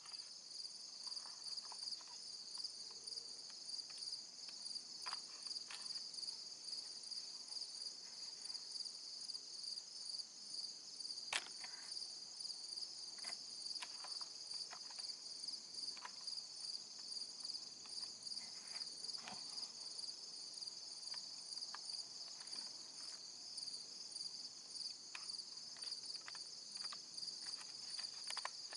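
Steady chorus of insects trilling high-pitched with a fast, even pulse in the surrounding woods. Scattered faint clicks ride over it, the sharpest about eleven seconds in.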